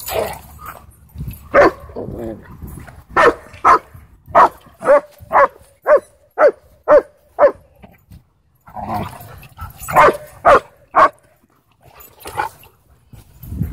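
Dog barking in play: a quick run of about nine sharp barks, roughly two a second, then a short pause and three more in a row.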